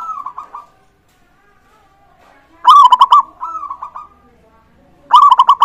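Zebra doves (perkutut) singing their rhythmic cooing song: a short phrase at the start, then two loud phrases about two and a half seconds apart, each a quick run of pulsed coos. Fainter doves call in the background.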